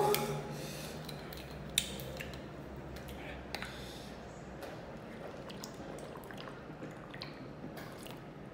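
Quiet mouth and drinking sounds from a person eating very spicy food: a brief hum at the start, then scattered small clicks and lip smacks, with sips of milk from a carton near the end.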